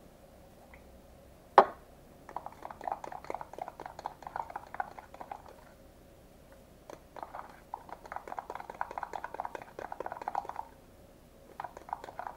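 Spoon stirring dish soap and salt in a small cup, scraping and clicking against the cup in two long spells of quick strokes. A single sharp knock comes about a second and a half in.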